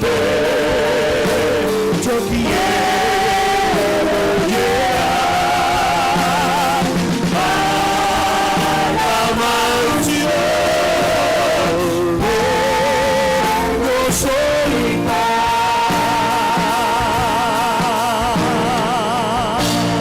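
Christian worship music: a melody in long, wavering held notes over a steady band accompaniment.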